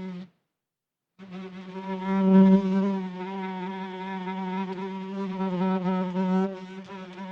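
Housefly buzzing in flight, a steady drone that wavers slightly in pitch and loudness. It cuts out completely about a quarter second in and resumes about a second later, swelling loudest a couple of seconds in.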